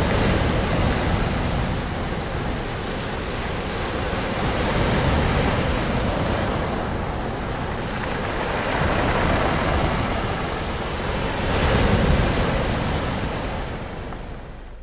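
Ocean waves breaking and washing in, a steady rush that swells several times a few seconds apart and fades away near the end.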